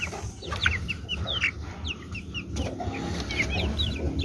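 Young chickens peeping in a wire cage: many short, high cheeps, overlapping and repeated, over a steady low rumble, with one sharp knock right at the start.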